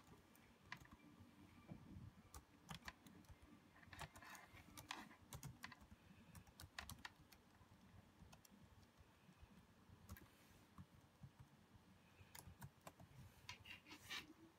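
Faint typing on a Samsung laptop keyboard: irregular key clicks, with quicker runs about four seconds in and near the end.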